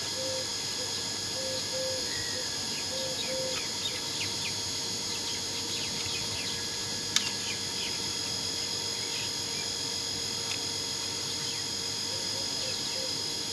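Craft knife blade scraping and picking at a small model car part: faint short scratches and one sharp click about seven seconds in, over a steady high-pitched whine.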